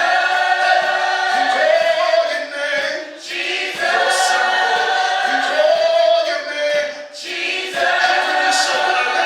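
A choir singing a gospel song in held phrases of about three seconds each, with short breaks between them.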